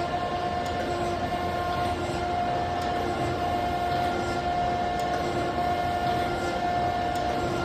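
NICCO NSG-6H surface grinder running: a steady whine from the spindle and motor over a constant machine hum.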